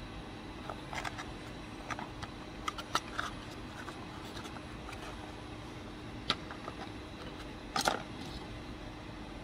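Cardboard box being handled and folded: scattered light rustles, creases and taps of the card, with a louder knock near the end, over a steady low hum.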